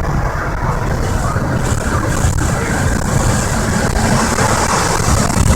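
A car driving along a highway: steady road and engine noise with a low rumble.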